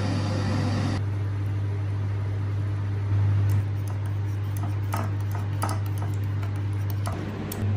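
Hot water poured from an electric kettle into a mug with a tea bag, with a few sharp clinks about three and five seconds in. A steady low electrical hum runs underneath.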